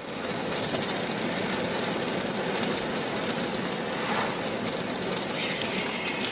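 Steady road and tyre noise of a car at highway speed, picked up inside the car by a dashcam. A faint higher tone joins it near the end.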